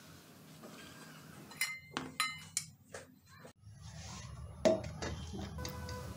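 Metal dishware clinking: several short ringing clinks in quick succession, then a stainless steel plate set down as a lid over a bowl with one louder knock about three-quarters of the way in, over a low steady hum.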